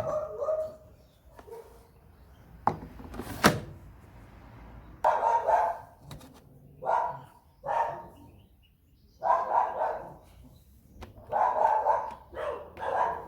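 A dog barking: several short barks in the second half, after two sharp knocks about three seconds in.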